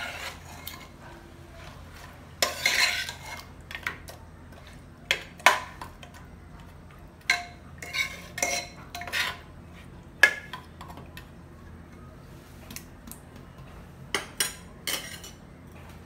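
Steel spoon stirring raw mutton chops through thick masala paste in a pressure cooker, clinking and scraping against the pot at irregular moments, with a longer scrape about two and a half seconds in and a pause near the end. A faint steady low hum runs underneath.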